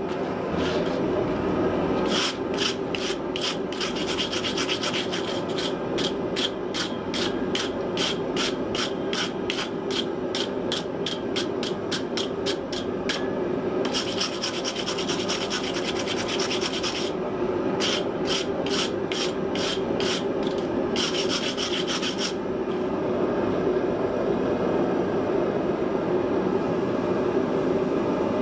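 Quick back-and-forth hand scraping on steel, about three strokes a second, as rusty patina is taken off the metal; it stops several seconds before the end. A steady low roar runs underneath.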